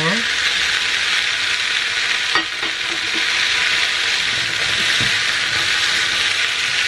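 Chicken meatballs and mixed vegetables sizzling steadily in hot oil in a non-stick frying pan, stirred with a silicone spatula as asparagus tips are slid in. A light knock comes about two and a half seconds in.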